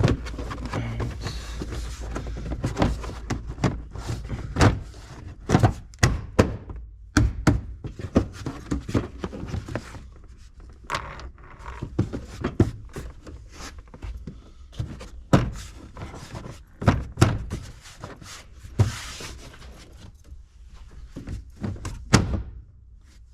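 Irregular knocks, thunks and clicks of car interior parts being handled and fitted back into place, over a steady low hum.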